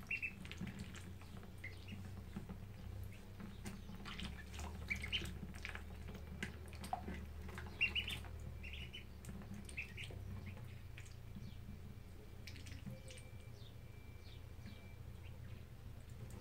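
Ducklings peeping in short high chirps every second or so, thinning out after about ten seconds, with small clicks and drips as they dabble at a plastic water drinker, over a low steady hum.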